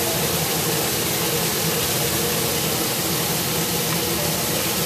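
Kitchen exhaust fan running: a steady rushing noise with a low hum, while shrimp fry in oil in a wok.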